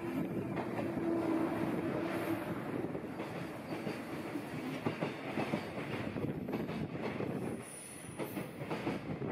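JR Freight EF210 electric locomotive and its container wagons passing at speed, a steady hum in the first few seconds, then the rapid clatter of wagon wheels over the rails. A brief high squeal comes near the end.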